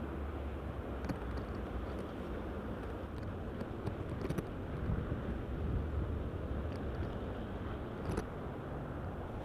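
Steady outdoor background noise with a low rumble, and a few faint scattered clicks.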